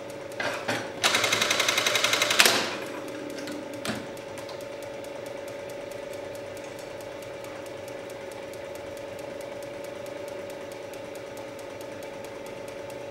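Industrial button sewing machine with its motor humming steadily. About a second in, it runs a quick burst of rapid stitching strokes for about a second and a half, ending with a sharp clunk, then goes back to idling with a few light clicks.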